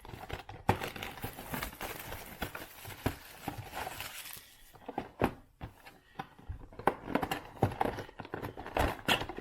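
Plastic wrap crinkling and tearing as a sealed trading-card hobby box is opened, followed about halfway through by a series of taps and knocks as the cardboard box and packs are handled.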